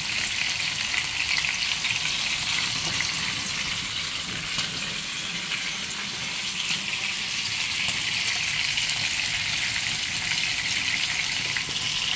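Chicken pieces frying in hot oil in a grill pan and a wok: a steady sizzle with fine crackling throughout.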